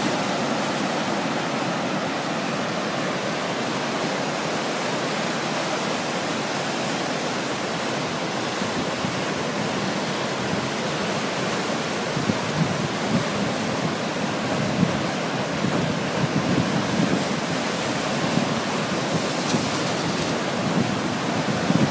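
Lake Michigan storm surf: big waves breaking in a steady, continuous rush of water noise driven by gale-force wind. From about halfway through, irregular low gusts of wind hit the microphone.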